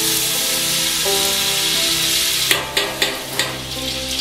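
Sliced onion sizzling in hot oil in a large metal pot, a steady hiss. A spoon knocks against the pot a few times a little past the middle.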